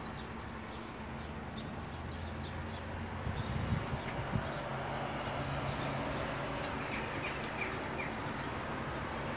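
Birds calling in short chirps, with a quick run of them about seven seconds in, over steady background noise. A low hum and a few knocks sit under the first half.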